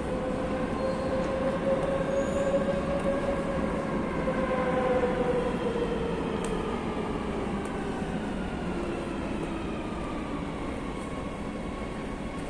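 Madrid Metro train out of sight in the station, its electric motor whine rising slightly and then falling in pitch over a steady rumble.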